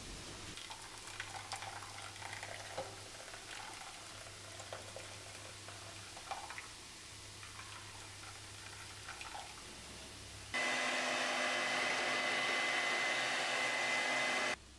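Electric hand mixer beating pancake batter in a bowl. It switches on abruptly about ten seconds in, runs at a steady speed with a high whine, and stops just before the end. Before that, faint trickling and small clinks as liquid is poured into the batter.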